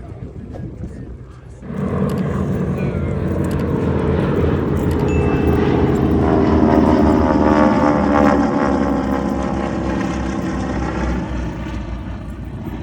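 Aircraft flying overhead. It comes in suddenly about two seconds in, is loudest around the middle with a sweep falling in pitch as it passes, then eases off.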